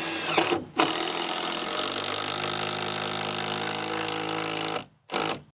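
Makita 18V cordless impact driver hammering a long screw into softwood framing lumber: a short burst, then a steady hammering run of about four seconds as the screw sinks in, and one more brief burst near the end.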